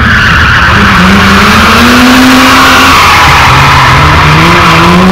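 BMW M3 Compact rally car's engine revving hard while its tyres squeal in a slide; the revs climb, drop back about three seconds in, then climb again.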